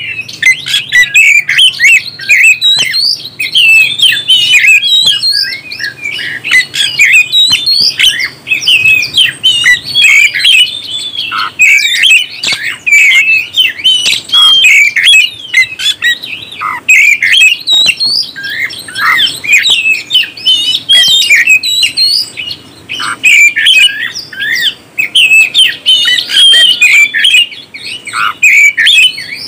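Oriental magpie-robin (kacer) singing a rapid, unbroken stream of varied, quickly gliding whistled notes, the full, continuous 'gacor' song used as a bait recording to set other kacer singing.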